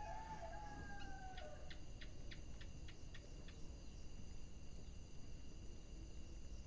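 Wood fire crackling faintly under a steady hiss. An animal call, long and slightly falling in pitch, sounds through the first second and a half. A quick run of about eight sharp ticks comes from about one to three seconds in.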